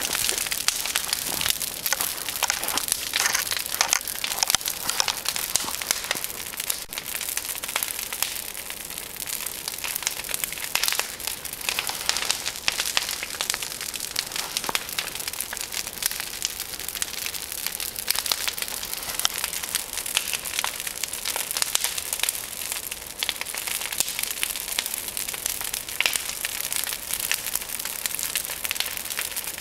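Large pile of brush and branches burning hard, with a dense, continuous crackling and popping of burning twigs.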